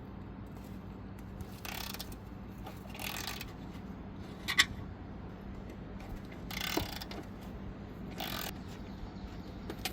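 Ratchet wrench clicking in four short bursts as the bolts holding a mower deck's belt keeper are backed out, with a sharp metallic click about halfway through. A steady low hum runs underneath.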